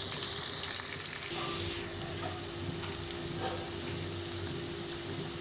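Sliced onions, whole garlic and bay leaves sizzling steadily as they fry in hot oil in a kadai, with a few small pops. A faint low steady hum comes in after about a second and a half.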